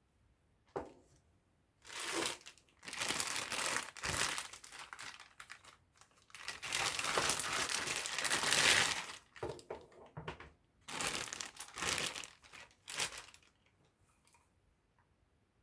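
Packaging being handled, crinkling and rustling in a series of bursts with a long stretch in the middle, then stopping well before the end.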